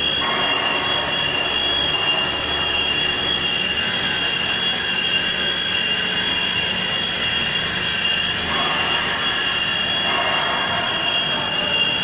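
Hydraulic power unit of a welding positioner running as the positioner tilts and rotates a heavy steel fixture: a steady high whine over a hiss, with small shifts in tone a few times.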